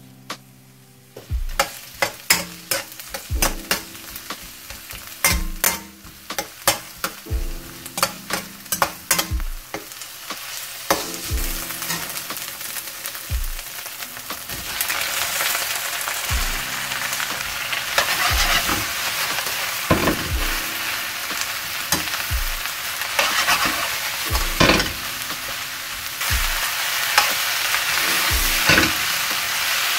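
A metal ladle clanks and scrapes against a wok as chopped leek and ginger are stir-fried in sizzling oil. From about halfway the sizzle grows louder and denser, with more vegetables in the wok and the wok being tossed near the end.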